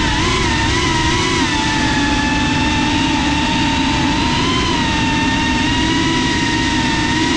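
FPV drone's electric motors and propellers whining at a steady cruising throttle, heard from the onboard camera, the pitch dipping a little about a second and a half in.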